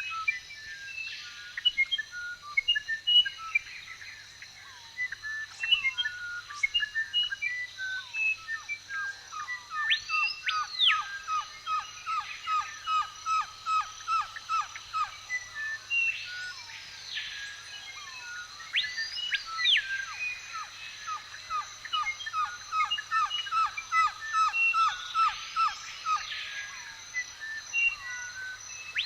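Several birds chirping and singing in a forest chorus, with a long run of rapid, evenly repeated notes through the middle and a few rising-and-falling whistles over a steady high hum.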